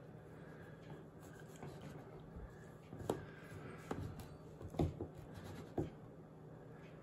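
Long knife cutting down through a soft ricotta cheesecake, with faint scraping and a few sharp taps as the blade meets the metal springform pan base, between about three and six seconds in.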